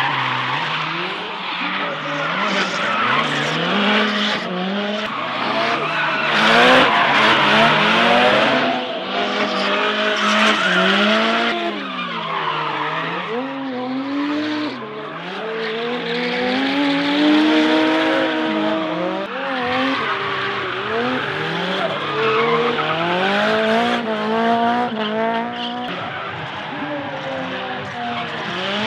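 Drift cars sliding with their tyres squealing and screeching, while the engines rev up and down again and again as the drivers work the throttle. The tyre noise swells loudest about six to eleven seconds in.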